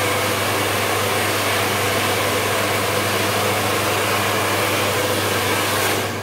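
Handheld hair dryer blowing steadily, a loud rush of air over a low motor hum, stopping just before the end.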